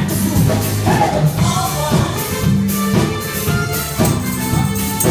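Live R&B band playing: drum kit and a steady bass line under women singing into microphones, with electric guitar.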